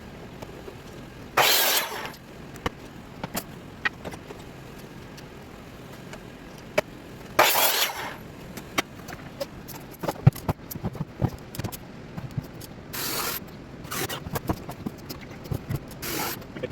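Building wooden racks: short loud bursts of a power tool, two about six seconds apart and two more near the end, among sharp clicks and knocks of wood and tools being handled.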